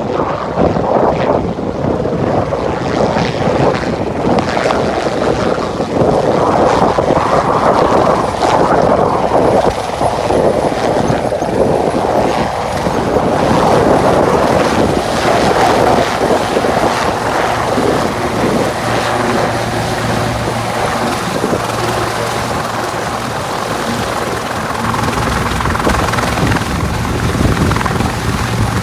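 Helicopter running, a loud steady rush of engine and rotor noise; a low steady hum joins in a little past halfway.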